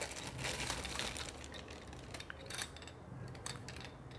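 Clear plastic wrapping crinkling as a stainless steel push-button pepper grinder is pulled out of its bag. This is followed by a few light clicks and taps as the metal grinder is handled.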